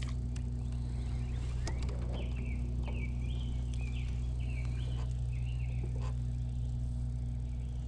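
A bird singing a run of short, quick chirping notes from about two seconds in until about six and a half seconds, over a steady low hum.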